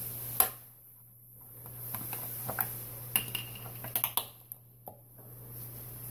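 Scattered clicks and knocks of kitchen items being handled beside a mixing bowl: one sharp knock about half a second in, then small clicks and taps, bunched around four seconds in.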